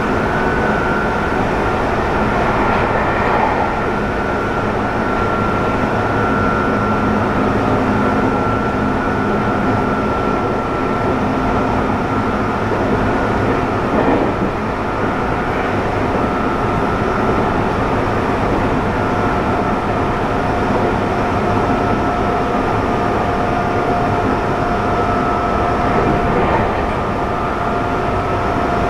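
Running sound inside a Nagoya Municipal Subway N3000-series train with a Toyo IGBT-VVVF inverter: a steady rumble of the wheels on the rails, with thin high whines from the traction motors and inverter that drift slowly lower. One faint knock comes about halfway through.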